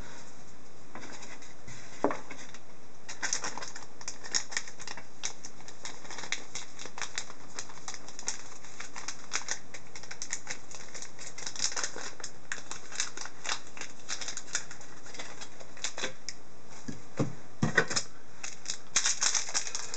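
A foil hockey-card pack wrapper crinkling and crackling as it is handled and opened: a run of irregular small crackles, with a few sharper ones near the end.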